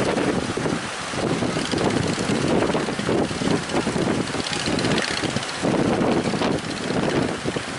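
Strong wind buffeting the microphone in irregular gusts over the rush of a rough sea.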